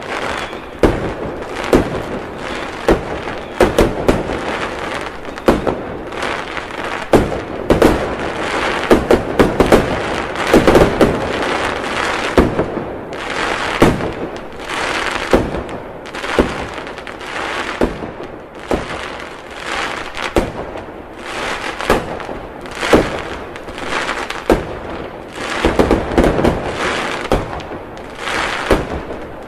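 Fireworks display: aerial shells bursting one after another in quick, irregular succession, sharp bangs over continuous crackling.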